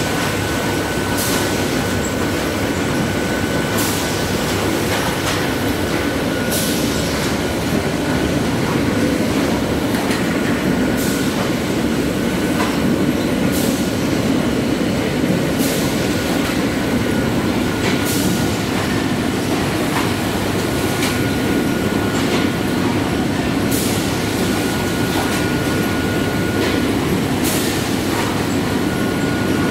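GHD Hartmann Automat PP 30 pillow packaging (flow-wrap) machine running: a dense, steady mechanical rumble of belts and drives with a faint steady whine. Short sharp air hisses come every few seconds from its pneumatic cylinders.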